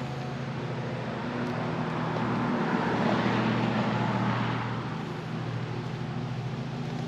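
A road vehicle passes by: its noise swells, peaks a few seconds in, then fades, over a steady low engine hum.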